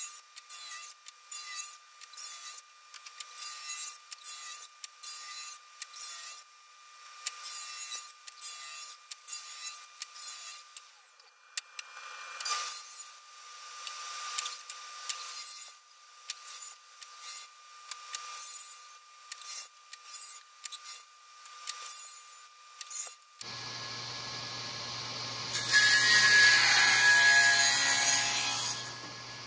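Wood being worked in quick rhythmic strokes, about one a second, with a sawing, rasping sound. About three-quarters of the way through, the sound changes to a steady machine hum, and a loud burst of cutting noise lasts about three seconds near the end.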